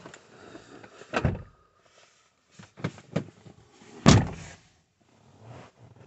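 Two dull thumps in a car's cabin, about three seconds apart, the second the louder, with a few light clicks between them.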